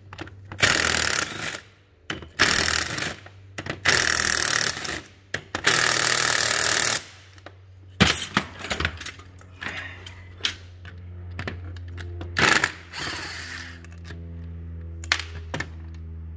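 Cordless impact wrench hammering in short bursts, four in the first seven seconds and one more about twelve seconds in, undoing the 9/16 bolts that hold the crown wheel of a 1948 Holden FX differential. Sharp metallic clicks and clinks fall between the bursts.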